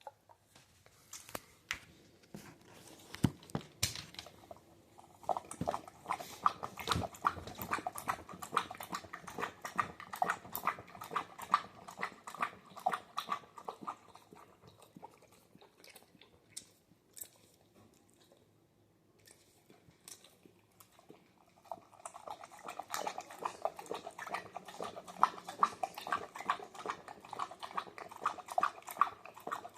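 Dog slurping and lapping soup from a bowl: long runs of rapid laps, with a quieter stretch in the middle.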